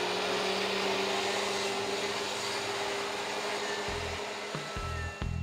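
DeWalt DW735 thickness planer with a Shelix helical cutterhead and its chip impeller removed, running steadily with no board in it: an even motor and cutterhead whine over a hiss. Music with low beats comes in near the end.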